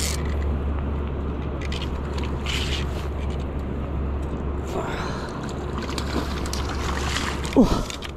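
Steady low rumble under flowing-water noise, with a short squeak that glides in pitch near the end.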